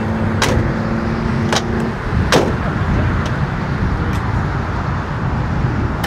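Wind buffeting the microphone with a loud low rumble, under a steady hum that stops about two seconds in. A few sharp clicks or knocks come in the first four seconds.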